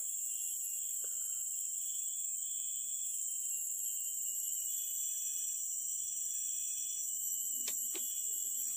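Steady, high-pitched insect chorus, one continuous shrill drone, with two faint clicks near the end.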